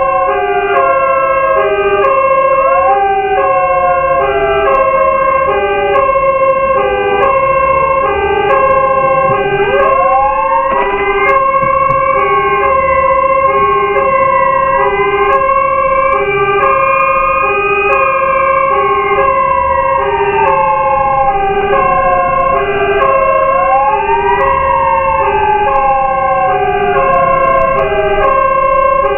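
Fire truck's warning sirens running together: a pulsing hi-lo tone alternating between two pitches about once a second, over a wailing siren that falls slowly and winds back up sharply twice, about ten seconds in and again some fourteen seconds later. A low engine rumble runs underneath.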